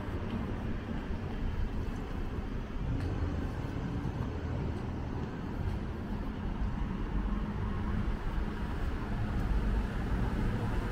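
Steady urban street ambience: a low hum of traffic.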